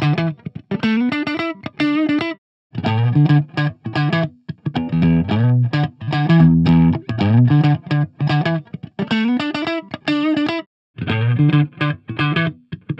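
Fender Stratocaster electric guitar playing a short repeating phrase of picked notes and chords through a Hughes & Kettner Tubemeister 36 tube amp and a Marshall cabinet, close-miked. The phrase breaks off briefly twice, about eight seconds apart, as the loop starts over.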